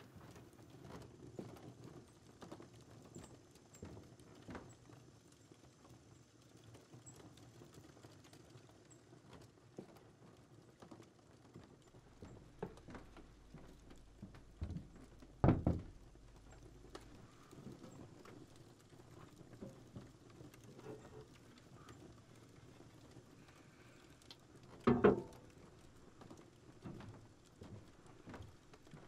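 Faint footsteps, shuffling and small knocks of people moving about on a wooden floor and handling things, with two louder wooden knocks, one about halfway through and one near the end.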